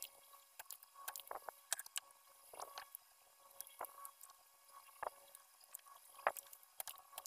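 Soldering iron desoldering power MOSFETs from a car amplifier's circuit board: faint, irregular clicks and crackles as the tip works the solder joints.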